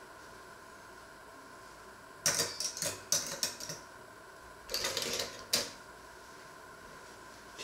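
Metal cutlery clinking and rattling in two short bursts a little over a second apart, as pieces are rubbed dry in a cloth tea towel.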